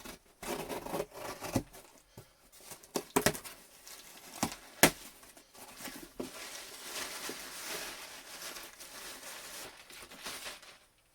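A mailing package being torn open and its wrapping crumpled: bouts of tearing and crinkling broken by a few sharp snaps, then a steadier stretch of rustling that stops just before the end.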